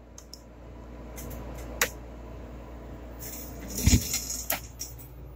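Handling clicks and knocks as a vintage portable TV's front-panel knobs are worked and things are moved on the bench. There is a sharp click just under two seconds in and a heavier knock about four seconds in, over a low steady hum.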